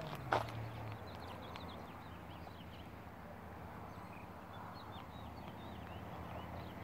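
Small birds chirping in the background: many short, high chirps scattered throughout, over a low steady hum. There is a single sharp click shortly after the start.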